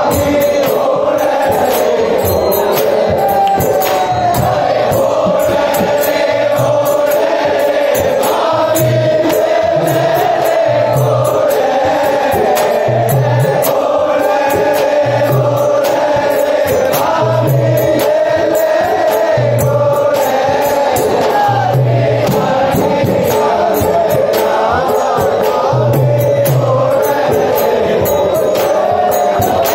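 Men singing a Holi folk song into a microphone, backed by frame drums that beat deep strokes, often in pairs, about every two seconds.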